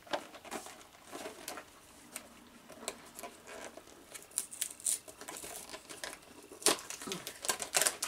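A cardboard cookie box and its plastic wrapper being opened by hand: scattered crinkling and rustling with small clicks, with a sharper rustle about two-thirds through.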